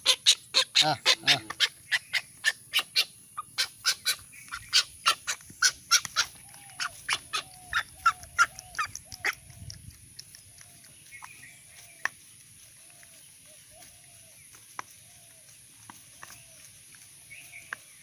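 An egret's bill clicking and pecking: a fast run of sharp clicks, about three a second, for roughly the first nine seconds, then occasional single clicks as it picks at food. Faint short bird calls repeat through the middle.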